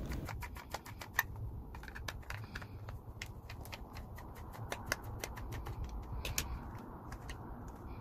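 Screwdriver working screws out of a Dyson V6 vacuum's plastic cyclone shroud: a run of light, irregular clicks and ticks, several a second.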